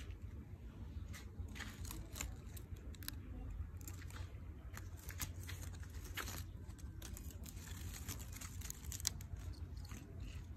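Leaves of a potted mai (Vietnamese yellow apricot) tree rustling and crinkling as a hand pushes through the foliage, in many short scattered rustles over a low steady rumble.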